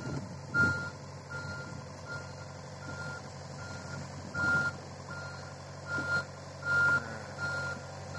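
Hitachi mini excavator's travel alarm beeping steadily, about one and a half short beeps a second, over the diesel engine running as the machine tracks along, with a few louder surges of machine noise.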